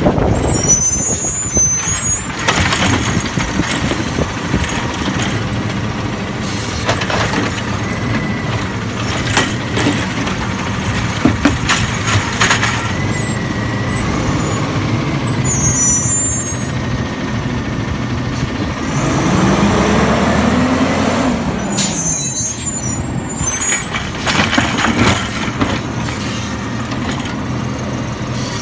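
Automated side-loader garbage truck at work: the diesel engine runs steadily while the hydraulic arm grips and lifts a wheeled cart, with a rising and falling hydraulic whine about two-thirds of the way through. Short air hisses come near the start, around the middle and again later, with scattered clanks of the arm and cart.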